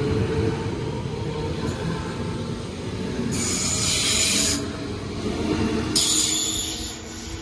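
A DB Class 1440 electric multiple unit (Alstom Coradia Continental), several units coupled, running past close by: steady rumble of wheels on the rails. About three seconds in, and again about six seconds in, comes a burst of high hiss.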